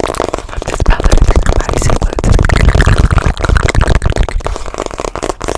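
Fast, aggressive close-microphone ASMR trigger sounds: a dense, rapid run of clicks and rubbing right against the microphone, with heavy low thumps.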